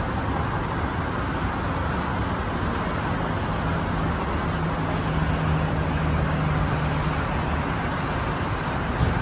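Steady road traffic noise with a low engine hum that grows a little louder around the middle. A short knock comes near the end.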